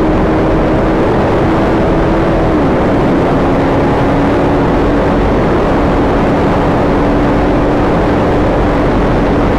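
Motorcycle on the move: heavy wind noise on the rider's microphone over a steady engine hum whose pitch drops slightly about two and a half seconds in.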